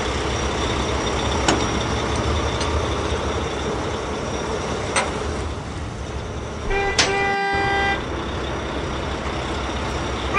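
Steady rushing noise, broken by a few sharp clicks, with a single flat horn toot lasting about a second near the seven-second mark.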